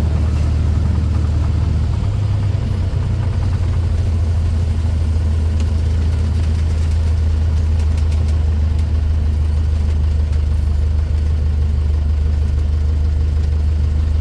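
Cessna A152 Aerobat's four-cylinder Lycoming O-235 engine idling while the plane taxis, heard from inside the cockpit as a steady low drone. Its note settles a little lower about two and a half seconds in.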